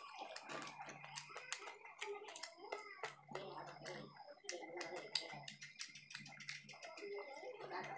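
Close-up eating sounds: forks clicking and scraping against plates, with chewing and mouth noises from eating noodles, in quick irregular clicks.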